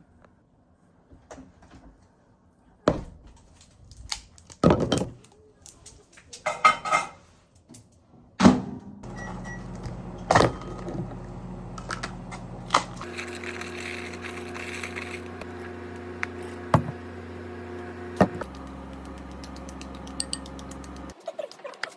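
Household knocks and clatters, then a steady appliance motor hum about eight seconds in. The hum shifts twice and cuts off abruptly near the end.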